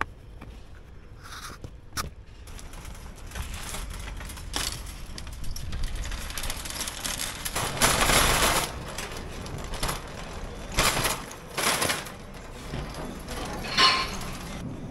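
Plastic shopping cart being pushed along, its wheels and basket rattling steadily, with louder bursts of clatter about eight, eleven and fourteen seconds in.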